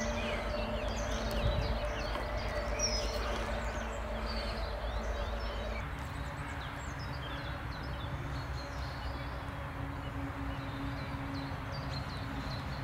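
Small songbirds chirping and singing on and off over a steady outdoor background of noise and a faint low hum. The background changes about six seconds in.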